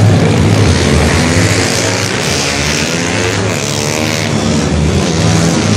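Several small motorcycles being ridden hard past a crowd, their engines revving with the pitch rising and falling as they pass and shift.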